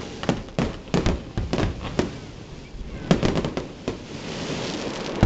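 Fireworks finale: aerial shells bursting in loud, irregular bangs, with a rapid cluster of bursts about three seconds in.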